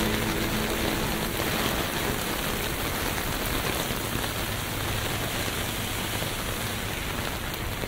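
Steady rainfall, an even hiss of rain falling on the pavement around.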